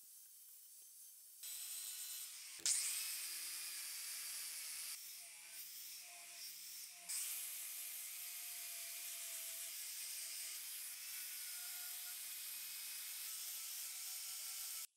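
Angle grinder with a sanding disc running against a wooden gun stock: a steady high hiss of abrasive on wood over the motor's whine. It starts about a second and a half in, with a sharp knock just after, eases off briefly for a couple of seconds in the middle, and stops abruptly at the end.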